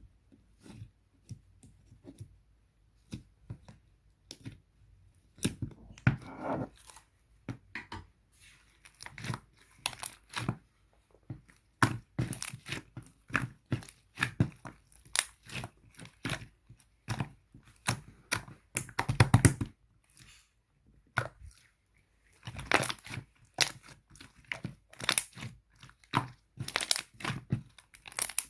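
Slime being squeezed, stretched and poked by hand, giving irregular sticky crackles and pops, several a second, with a denser burst about two-thirds of the way in.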